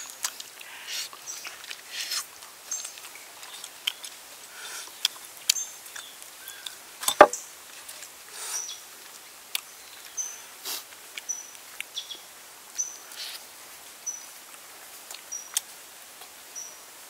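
Crisp roasted duck skin and meat crackling and tearing as a knife cuts in and hands pull it apart, then as it is bitten, in scattered sharp clicks with one louder knock about halfway. In the second half a bird chirps short high notes in a steady series.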